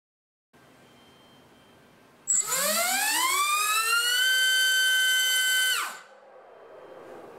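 HypeTrain Grinder 2306 2450KV brushless motor on 4S spinning an HQ 5043x3 three-blade propeller on a thrust stand. About two seconds in, it spins up fast with a loud, steeply rising whine to a steady high-pitched full-throttle whine, then cuts off near the end and winds down.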